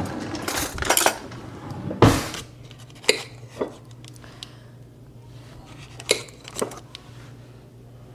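Metal cutlery rattling as a kitchen utensil drawer is rummaged through, a louder knock about two seconds in, then a few sharp clicks of a table knife tapping against a butter dish and a sheet pan while butter is cut into pats.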